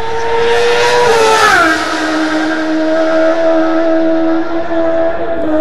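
A superbike racing motorcycle passes at very high speed. Its engine note drops sharply in pitch with a rush of noise about a second and a half in, then carries on at a lower, steady pitch.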